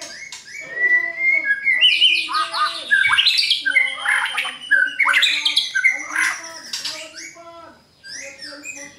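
White-rumped shama (murai batu) singing a loud, fast run of varied whistles, trills and sweeping notes, breaking off briefly near the end.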